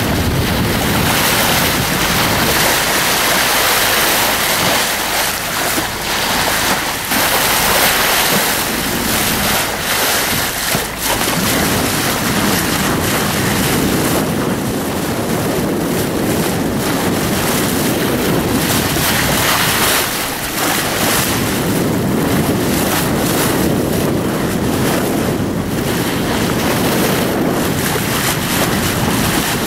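Wind buffeting the microphone over the steady rush of sea water along the bow of a sailing yacht under way.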